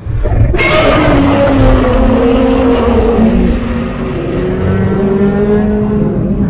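Godzilla roar sound effect: one long roar that bursts in about half a second in and holds for some six seconds, its pitch sliding slowly down.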